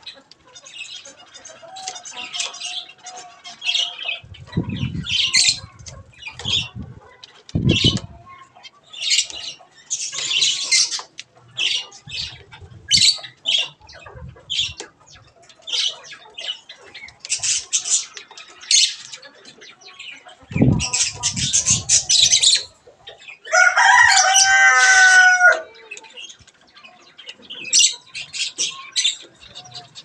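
A busy chatter of short, high zebra finch calls, with three low thumps. About three-quarters of the way through, a small rooster crows once, for about two seconds.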